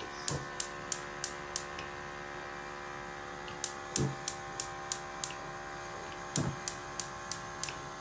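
Gas hob spark ignition ticking in three runs of rapid clicks, about three a second, over a steady hum.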